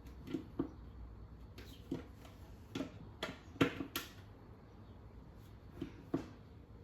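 Irregular clicks and light knocks of plastic vacuum-cleaner parts and a tool being handled during disassembly, as the handle is worked loose. The loudest cluster of clicks comes about halfway through.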